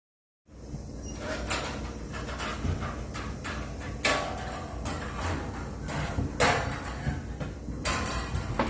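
Irregular knocking and clattering, several sharp loud knocks among them, over a steady low hum. It starts after a brief dropout in the sound.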